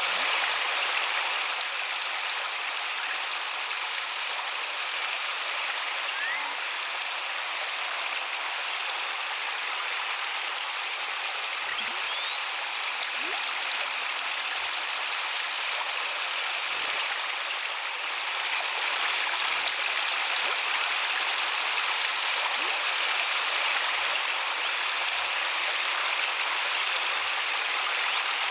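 Water running steadily over a garden pond waterfall and splashing into the pond below.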